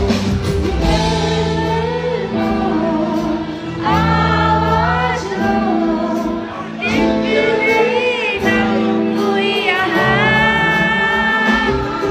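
A song with a singer holding long, wavering notes over steady backing chords.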